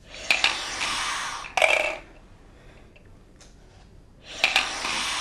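A slow, deep breath drawn through the mouthpiece and tubing of a three-ball incentive spirometer, about two seconds long and growing louder near its end. After a pause of about two seconds comes a second long breath through the mouthpiece.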